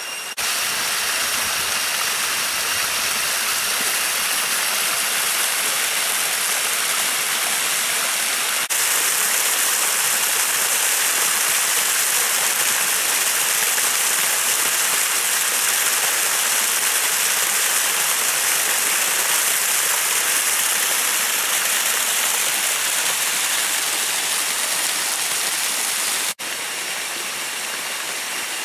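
Water rushing over rock in a small jungle stream or cascade: a steady hiss. It jumps slightly louder about nine seconds in and drops suddenly near the end.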